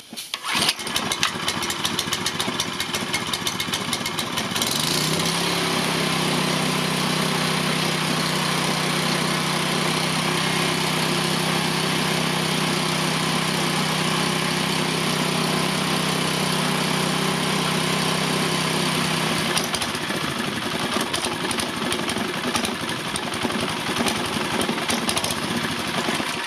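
Small gasoline engine on a pressure washer starting and running, uneven for the first few seconds, then settling into a steady hum. After about twenty seconds it runs rougher and cuts out near the end as it runs out of fuel.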